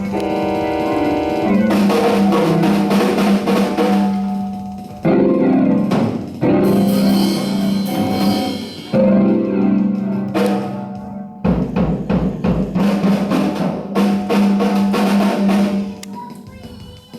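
Music with drums and snare rolls over sustained pitched tones, cutting abruptly from one section to another every few seconds.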